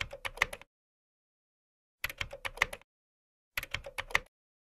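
Title-reveal sound effect: three short bursts of quick, dry clicks, like keys typing, separated by silence, at the start, about two seconds in and about three and a half seconds in.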